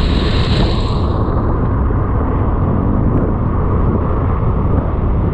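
Steady wind rush on a riding motorcyclist's action-camera microphone, over the motorbike's engine and road noise. The higher hiss fades about a second in.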